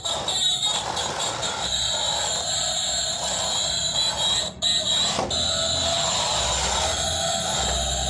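Small DC gear motors of a toy RC truck whirring steadily as it drives across a concrete floor. The sound breaks off briefly twice, about four and a half and five seconds in.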